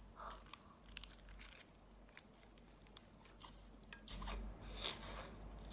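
Close-up mouth sounds of a person biting and chewing food: faint wet clicks at first, then louder crunching bites about four seconds in.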